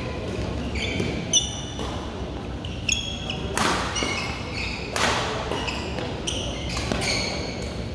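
Badminton rally in a large echoing hall: sharp racket hits on the shuttlecock, the loudest about a second and a half in, mixed with short high squeaks of court shoes on the floor.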